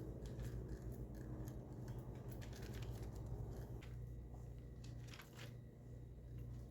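Faint soft handling noises of raw ground chicken being scooped and pressed into patties by hand, with light rustling of parchment paper, over a steady low hum.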